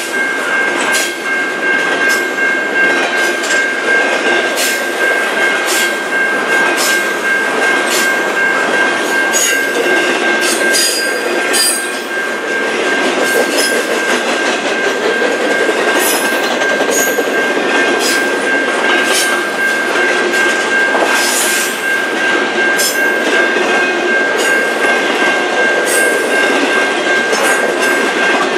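Double-stack container well cars of a freight train rolling past: steady wheel-on-rail noise with irregular sharp clicks and clanks from the wheels, over one steady high-pitched squeal, likely from wheel flanges.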